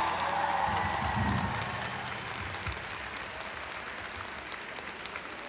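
Concert audience applauding as a song ends, the applause fading away gradually.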